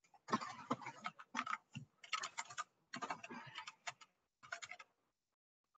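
Faint, irregular clicking and clacking of computer keyboard keys, in quick runs of several strokes with short pauses between them.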